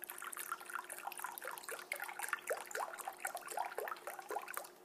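Beef stock pouring in a thin stream from a carton into broth in a crock pot: a steady, bubbly trickle full of small rising plinks.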